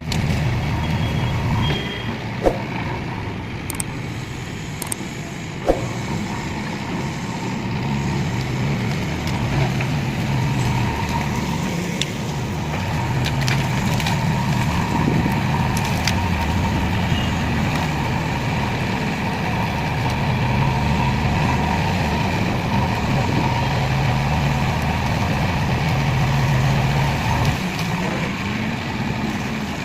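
JCB backhoe loader's diesel engine working steadily, its drone swelling and easing as the load changes. Two sharp knocks come in the first six seconds.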